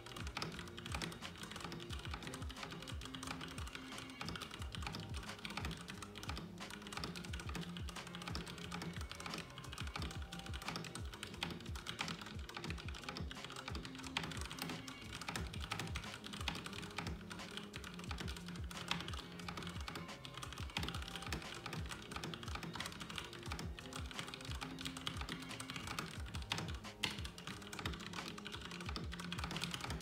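Fast, continuous typing on a Ducky One 2 mechanical keyboard with Cherry MX Brown switches: a dense, unbroken run of keystroke clicks. Background music plays along with it.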